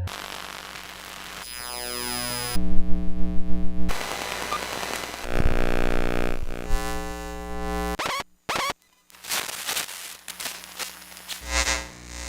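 Electromagnetic interference recordings cut one after another: electrical hums and buzzes, falling sweeping tones about two seconds in, then a loud pulsing buzz just after. Near the end, brief dropouts and clicks give way to crackling.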